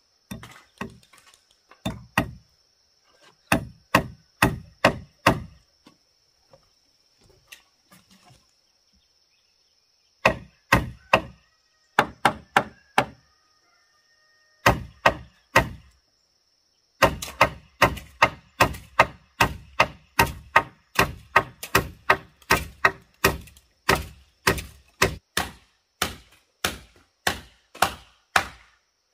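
Claw hammer driving nails into a wooden railing: short runs of blows with pauses between, then a steady run of about two blows a second through the last twelve seconds.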